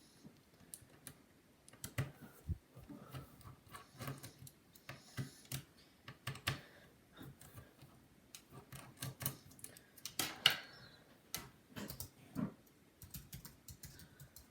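Irregular small clicks and light knocks of a precision screwdriver and loose parts being worked on a MacBook's plastic and metal casing while its hinge screws are undone, a few sharper knocks near the end.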